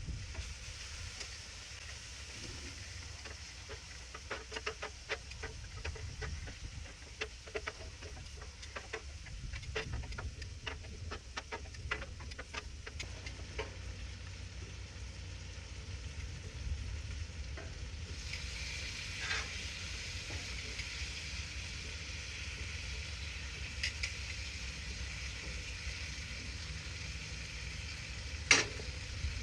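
Ribeye steaks sizzling on a hot grill, with a run of light clicks and scrapes from a cooking utensil in the first half. About eighteen seconds in the sizzle suddenly grows louder and brighter, and a single sharp knock comes near the end.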